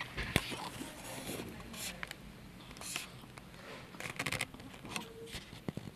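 Soft rustling of cloth and scattered handling clicks close to the microphone, with a cluster of sharp clicks about four seconds in and a brief faint tone about five seconds in.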